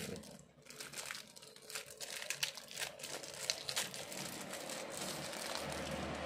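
Thin clear plastic wrap crinkling and crackling in irregular bursts as it is peeled off an electric toothbrush handle. Near the end the crackling gives way to a steady background noise that slowly builds.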